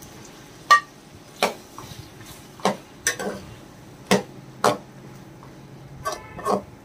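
Steel ladle clinking against a steel karahi and the serving plate, about eight irregular clinks, as fried chicken pieces are pushed into the pot and stirred into the tomato masala.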